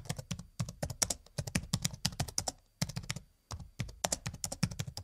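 Typing on a keyboard: quick, irregular keystroke clicks in runs with short pauses between them.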